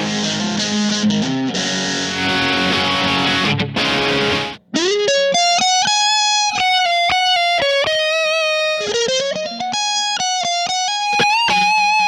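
Distorted electric guitar, a Fender Stratocaster with single coils played through a Kemper profile of a Fender Frontman Reverb amp. It is a harsh, fizzy chugging part that stops about four and a half seconds in. After a short break a single-note lead line of sustained, bending notes follows, with a smoother tone through a Diezel cabinet.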